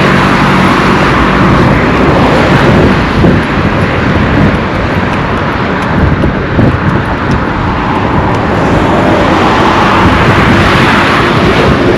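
Loud road traffic: motor vehicles passing close by, with an engine hum fading out in the first second and the traffic noise easing off mid-way, then building again near the end.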